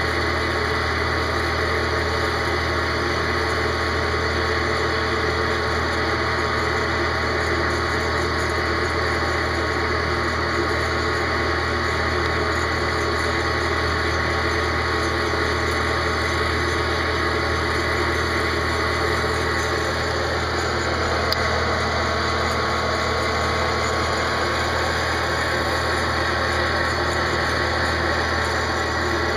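Old Popcorn Pumper hot air popcorn popper running steadily as a coffee roaster, its blower motor whirring while the hot air churns a batch of coffee beans in the roasting chamber. It is fed slightly reduced voltage through a variac.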